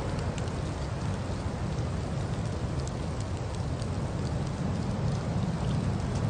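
Car driving through a snowstorm, heard from the cabin: a steady low rumble of tyres and engine under an even hiss, with scattered light ticks.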